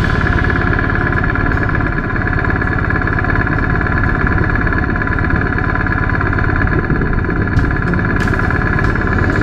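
Adventure motorcycle engine idling steadily.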